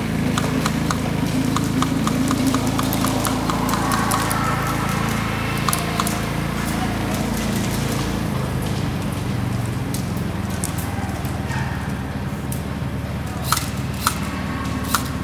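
Engine running steadily, with a run of sharp clicks about four a second over the first few seconds and three louder cracks near the end.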